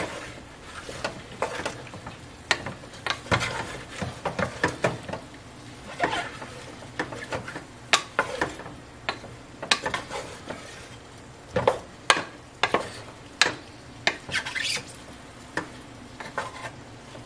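Wooden spatula stirring diced chicken, bell pepper and onions in a pot, with irregular scrapes and sharp knocks against the pot, over the sizzle of the food frying in oil.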